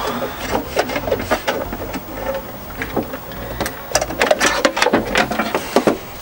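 Socket ratchet clicking in runs as 10 mm nuts at the car battery are undone, with small metal knocks. The clicking comes fastest in the second half.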